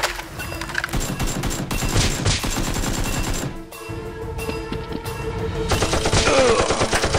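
Rapid machine-gun-style gunfire in dense bursts over background music, in two spells with a short break about three and a half seconds in.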